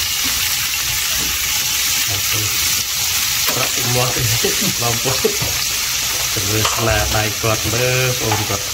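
Shell-on shrimp sizzling in oil in a non-stick frying pan, stirred with a silicone spatula at first. A voice talks in the background from about halfway through.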